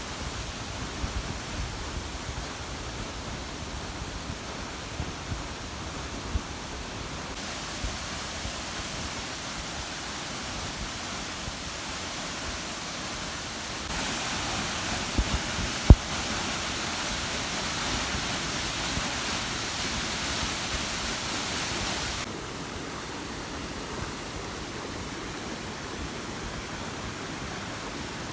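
Waterfall pouring into a pool: a steady rush of falling water that turns noticeably louder for several seconds in the middle, with a few low thumps and one sharp knock near the middle.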